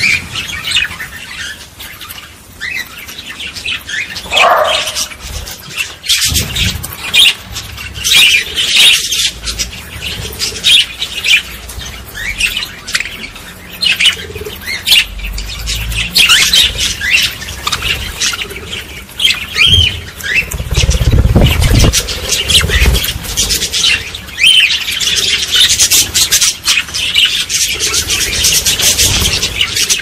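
A group of budgerigars chattering in a cage: rapid warbling chirps and sharp squawks, thickest near the end. A low rumble comes about two-thirds of the way through.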